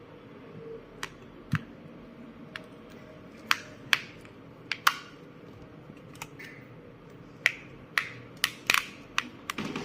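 Irregular sharp clicks and taps, about a dozen, from small tools and parts being handled while taking apart a Vivo V17 smartphone.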